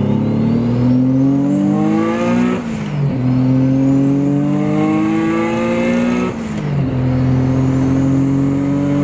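Single-turbo VQ35HR V6 accelerating hard, its revs climbing and falling away in two quick upshifts about two and a half and six seconds in. A high turbo whistle rises with the revs and drops at each shift.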